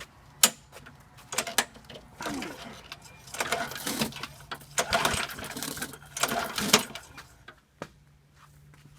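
Murray lawnmower's small engine being pull-started by its recoil cord, several pulls each with a rasping whir, turning over without firing. Its cylinder is wet with oil after hydrolocking.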